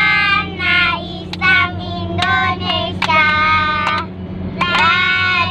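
Young children singing a song inside a moving car, their high voices rising and falling over a steady low hum from the car.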